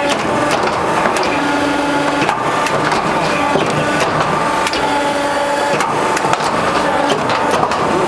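Roofing-sheet crimping machine running, with corrugated metal sheet crackling and rattling as it feeds through the rollers. Under it is a steady machine hum whose tone comes and goes.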